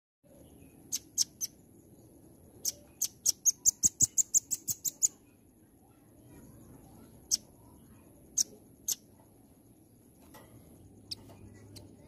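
Velvet-fronted nuthatch calling in sharp, high chips: a few single notes, then a fast rapid-fire run of about ten chips about three seconds in, then scattered single chips.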